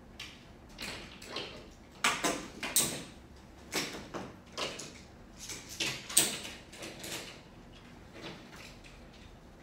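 Crossover Symmetry resistance bands being unhooked from the wall anchor and re-clipped at the low anchor: a run of sharp knocks and rattles of clips and handles against the metal mounts and wall, loudest and densest about two to three seconds in.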